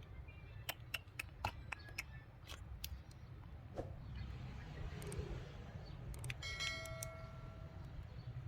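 Light clicks and taps of small tools working on a phone's glass, several in quick succession in the first few seconds and a few more later, over a steady low hum. A short electronic tone sounds about six and a half seconds in.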